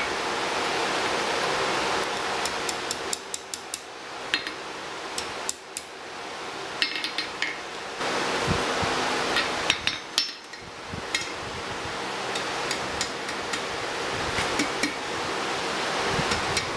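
Hammer striking a red-hot metal ring on the anvil horn: scattered clusters of light, sharp taps, some leaving a short metallic ring, over a steady rushing noise.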